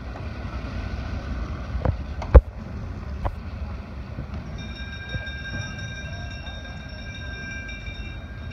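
Low, steady rumble of a pack of track bikes rolling on the wooden velodrome boards. A few sharp knocks come through, the loudest about two and a half seconds in, and a steady high ringing tone joins from about halfway until near the end.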